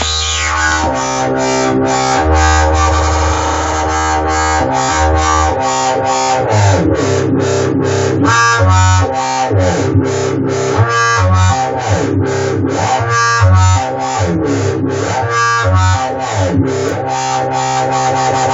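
Electronic music from the Native Instruments Massive software synthesizer: a distorted, rhythmically chopped synth patch pulsing about four times a second over a sustained bass line, with pitch sweeps through the middle.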